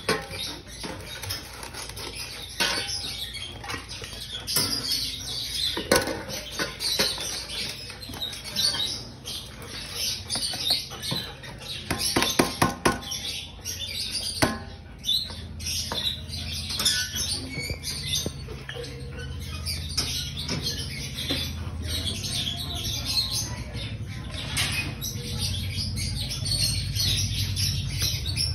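Plastic food container knocked and scraped against a stainless steel bowl as food is emptied into it: irregular sharp knocks and clatter, with a quick run of knocks about twelve seconds in.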